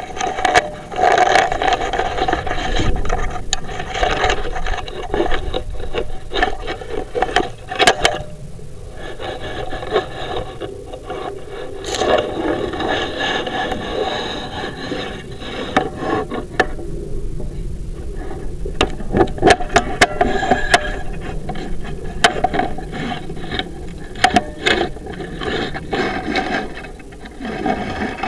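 A chimney inspection camera on push rods scraping, rubbing and rattling against the inside of a flue liner as it is pushed along, with frequent irregular clicks and knocks.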